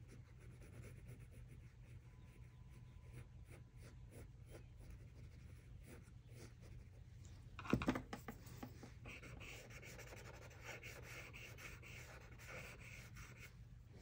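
Faint pencil graphite scratching on drawing paper in short shading strokes. About eight seconds in there is a single soft knock, followed by a run of quicker short scratchy strokes.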